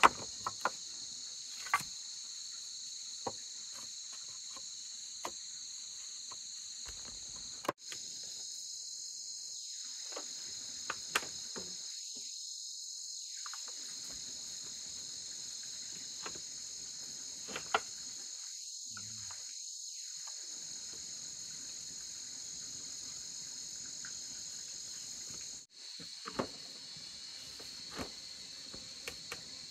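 A steady, high-pitched chorus of insects, with scattered sharp clicks and taps. The sound drops out for an instant about eight seconds in and again near the end.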